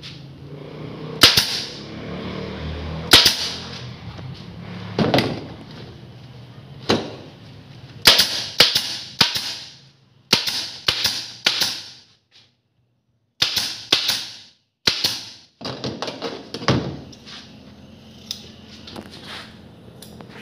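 Pneumatic staple gun firing about twenty times into foam and upholstery: each shot a sharp crack with a short hiss of air. The shots come at irregular intervals, then in quick runs of several a second through the middle.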